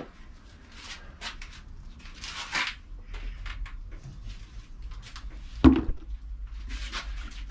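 Tomato plants' leaves and stems rustling as they are handled, with a single sharp knock about five and a half seconds in.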